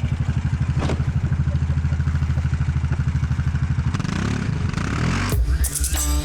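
Kawasaki Brute Force 650 ATV's V-twin engine running with a fast, even beat, then rising in pitch as it revs about four seconds in. Music starts near the end.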